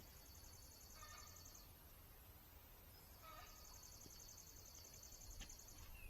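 Faint outdoor ambience of wild animal calls: a high, rapid trill heard twice, each lasting a couple of seconds, with a few short, lower chirps in between.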